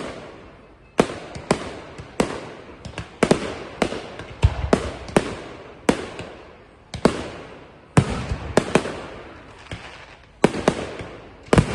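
Fireworks exploding overhead: a steady run of sharp bangs, about one or two a second, each trailing off in echo, with a deeper rumbling boom about four and a half seconds in.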